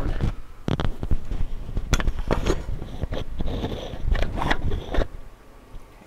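Microphone handling noise as the microphone is positioned at a telephone: scraping and rustling with several sharp knocks, stopping about five seconds in.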